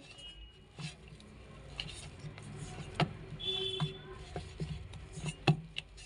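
Hands kneading and turning a flour-dusted ball of potato and wheat dough in a stainless steel bowl, with several scattered knocks of dough and fingers against the bowl, the sharpest about five and a half seconds in.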